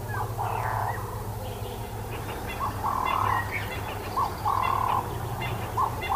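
Wild animal calls in a repeating pattern: a short upward note, then a flat call about half a second long, heard four times at intervals of a second and a half or more. Fainter chirps sound above it and a steady low hum runs underneath.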